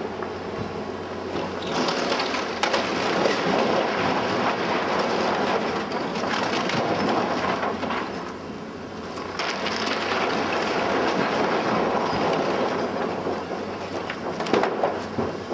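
Caterpillar tracked excavator with a demolition grab pulling down a barn wall: crunching and cracking of breaking timber and falling debris, with the excavator's engine humming underneath. The crashing comes in two long spells with a short lull about eight seconds in, and sharp cracks near the end.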